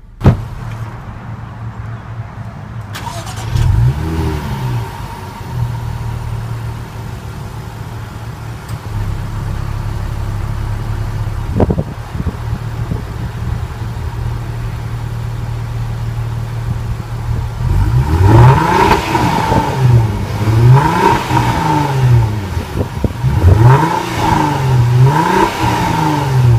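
Supercharged 3.0 V6 of a 2014 Jaguar XF running at idle, heard at its twin exhaust tailpipes. It gives one brief blip about four seconds in. From about eighteen seconds it is revved hard several times in quick succession, the engine note rising and falling with each rev.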